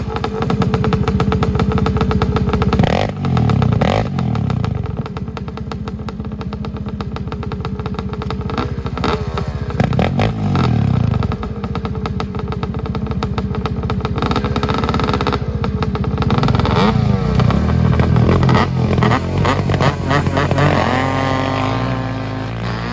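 ATV engine revving hard while riding, its pitch climbing and dropping several times as the throttle is opened and closed.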